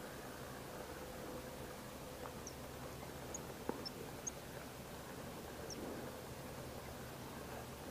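Faint, quiet outdoor background with about half a dozen short, high chirps scattered through it and a couple of soft clicks.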